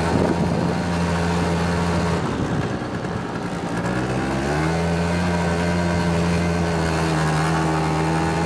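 Quad bike engine under way, holding a steady pitch, easing off about two seconds in, then revving back up about four seconds in and running steadily again.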